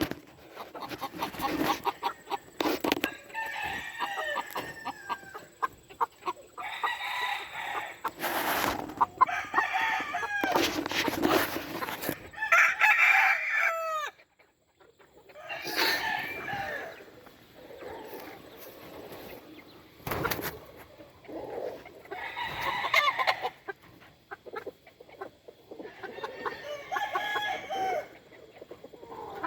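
Game roosters crowing several times in turn, with clucking between the crows and a few sharp clicks.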